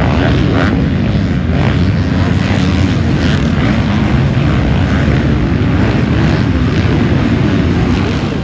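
A full pack of motocross bikes racing together, many engines running hard and revving at once in a loud, steady mass of engine noise.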